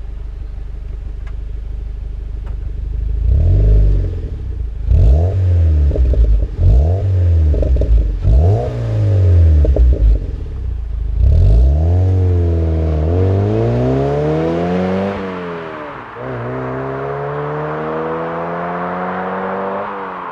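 Mazda MX-5 Mk3 four-cylinder engine through a BBR Super Sport rear exhaust backbox, its gasket freshly refitted so the box is sealed. It idles, is revved sharply several times, then accelerates with a rising note, drops pitch at a gear change about 15 s in, and climbs again.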